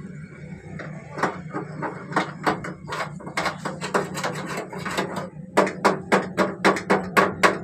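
Rapid repeated sharp strikes, like hammering. They are uneven at first, then come about four a second and loudest in the last two seconds, over a steady low hum.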